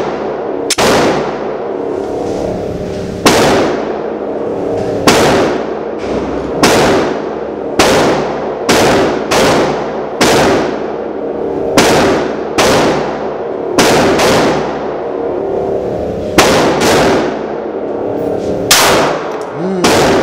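A pistol fired repeatedly in an indoor range booth, about fifteen shots at an uneven pace of roughly one a second. Each sharp crack is followed by a short echoing tail.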